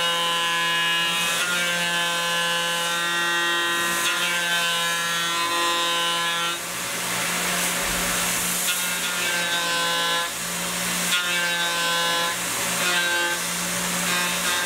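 A Tormach CNC mill's end mill cutting a metal block, a steady whine with a layered pitch over the spindle's hum. The whine drops out and comes back several times, about seven, ten and thirteen seconds in, as the tool leaves and re-enters the cut.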